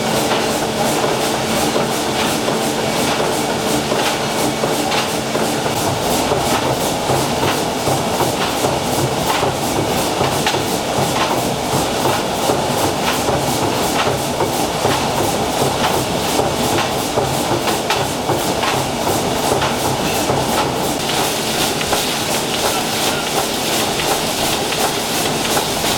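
Steamship's 800 hp triple-expansion steam engine running steadily under way, its cranks, connecting rods and valve gear working with a regular, rhythmic mechanical clatter and knocking.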